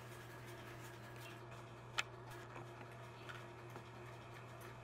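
Quiet room tone with a steady low hum, broken by a few faint short clicks and one sharper click about two seconds in.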